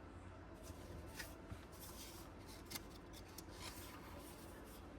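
Faint rustling and a few light clicks of Pokémon trading cards being handled and sorted by hand.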